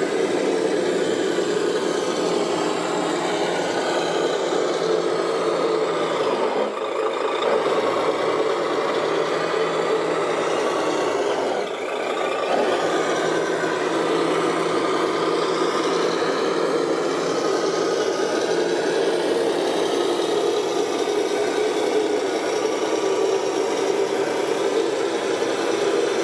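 Radio-controlled model construction machines working: steady whirring of their small motors and hydraulics mixed with rasping, rattling scrapes, as of dirt or gravel being dug and moved, with two brief dips in level.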